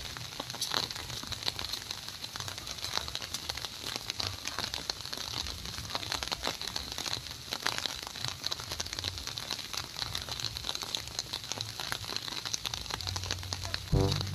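Light rain pattering on leaves and the ground, a steady hiss of many fine, irregular drips. Music comes in right at the end.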